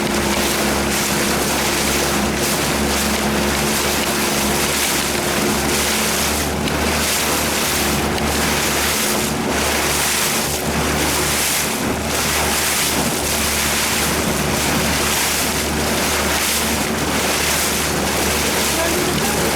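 A 1991 Evinrude 30 hp two-stroke outboard running at a steady speed under way on the water, with wind on the microphone. With its ignition timing retarded and new reeds fitted, it runs without missing or coughing.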